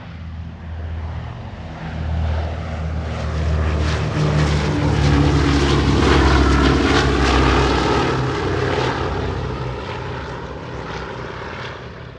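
Propeller airplane flying past: the engine drone swells to its loudest about six seconds in, then fades away.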